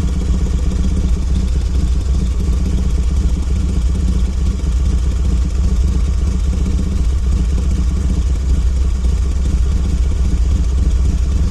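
Harley-Davidson V-twin motorcycle engine idling steadily, a low, even running sound with no revving.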